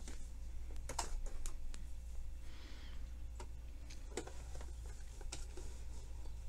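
Hands handling and folding sheer dress fabric on a sewing machine bed: scattered light clicks and taps with a soft rustle of fabric, over a steady low hum.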